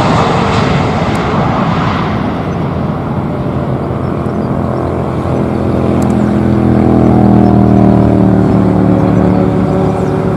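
Jet engines of a Boeing 777-300ER (GE90s) passing close by on landing approach. A loud rushing noise eases after about two seconds into a lower drone with steady humming tones, which swells again in the second half as the airliner flares for touchdown.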